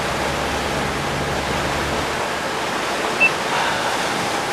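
Steady rush of wind and water from a cruiser under way across open harbour water, with a faint low hum in the first couple of seconds. A single short high blip sounds about three seconds in.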